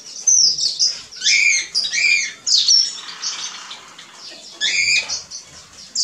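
Small captive finches chirping: short, high, overlapping calls in several bursts, with a quieter stretch in the middle.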